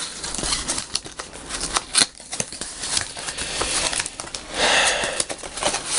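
Cardboard shipping box opened by hand: flaps scraping, rustling and clicking, with a longer scraping rustle about four and a half seconds in as the packing inside is handled.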